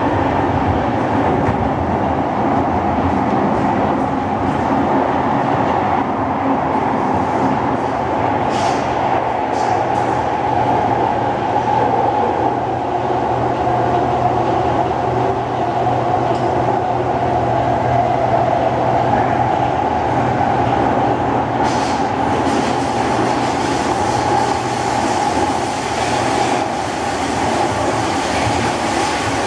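Interior of an SMRT C151 metro train running steadily between stations: continuous rumble and hiss of wheels on rail, with a low hum through the middle stretch and a few faint clicks.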